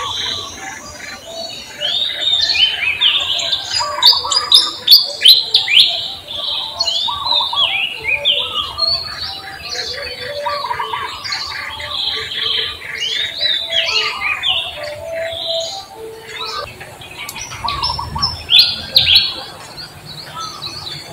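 Several birds chirping, a dense run of short, quick, overlapping calls, loudest about four to five seconds in.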